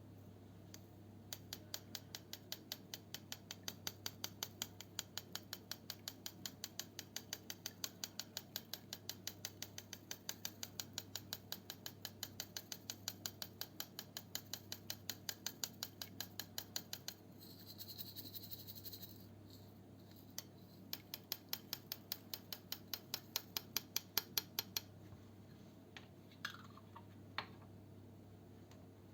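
Slime worked by hand, giving a quick, regular train of sharp clicks, about four a second. Partway through there is a short stretch of rustling, and near the end two brief falling squeaks.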